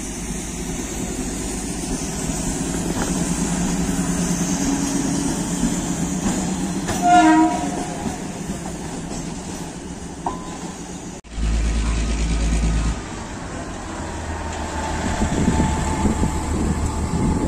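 OHE inspection car, a self-propelled diesel rail vehicle, running past on the track with a steady engine and wheel noise. A short horn blast sounds about seven seconds in, the loudest moment.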